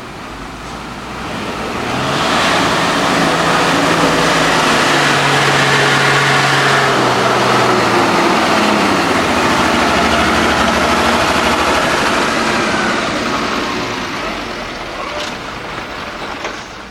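Heavily loaded tandem-axle truck's diesel engine labouring past. It grows louder about two seconds in, holds loud for around ten seconds, then fades.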